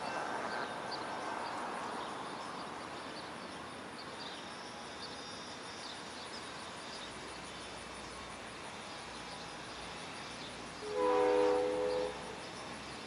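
Amtrak passenger train rolling away, its steady rumble slowly fading. Near the end the P42DC locomotive's horn sounds once in the distance, a chord of several notes lasting about a second.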